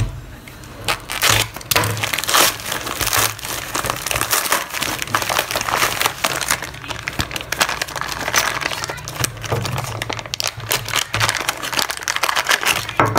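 Plastic packaging crinkling and rustling by hand, with irregular sharp crackles, as a parcel is unwrapped.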